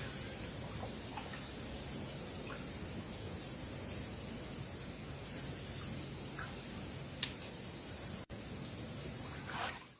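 Outdoor ambience: a steady high-pitched insect drone over a low hiss, with a single sharp click about seven seconds in.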